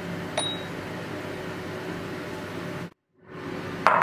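Steady low hum and hiss of room noise, with one short ceramic clink about half a second in as the lid of a small stoneware cocotte is lifted. The sound drops out briefly near the end, then louder clinks of crockery come just before the close.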